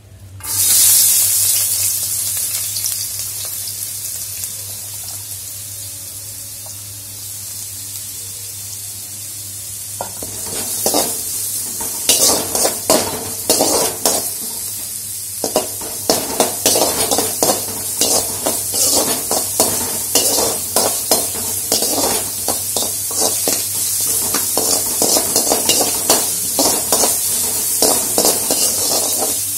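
Sliced onions and green chillies hit hot oil in a metal kadai, setting off a loud sizzle that slowly dies down. From about ten seconds in, a slotted metal spatula scrapes and knocks against the pan in quick, repeated strokes as the onions are stirred over the continuing sizzle.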